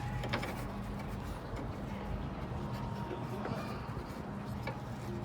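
A few faint light clicks from the small parts of a car door lock cylinder being fitted by hand, over a steady low hum.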